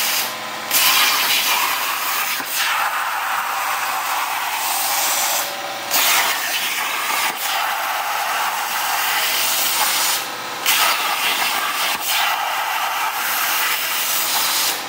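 Plasma arc from a Hypertherm Powermax torch on a CNC table cutting 1/4-inch steel plate: a loud, steady hiss. It stops briefly three times and comes back louder each time, as the torch finishes one cut and pierces to start the next.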